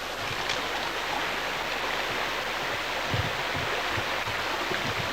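Fast-flowing stream: a steady rush of water running along its bank.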